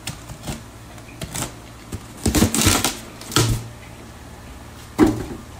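Styrofoam shipping box being opened with a hand tool: clicks and short scrapes, a louder scrape of the foam lid about two and a half seconds in, and a sharp knock near the end.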